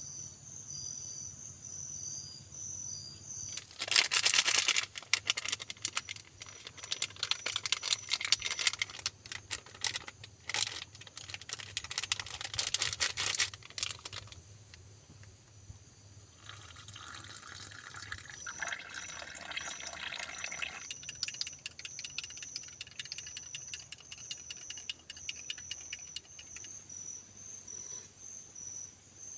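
Insects chirping in a steady, pulsing high note, broken for several seconds in the first half by loud, dense crackling and rustling noise, and a spell of hissing a little past the middle.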